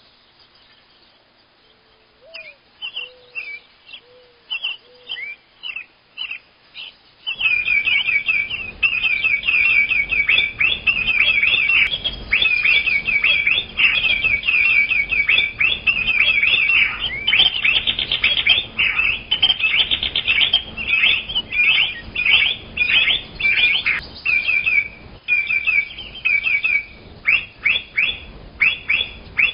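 Small birds chirping: a few scattered chirps and some short low notes at first, then from about seven seconds a dense, continuous chorus of rapid chirps over a steady background hiss.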